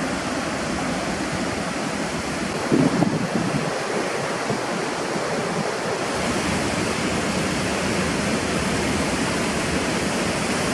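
Fast-flowing water rushing steadily, as from rapids or a waterfall, with a brief low bump about three seconds in.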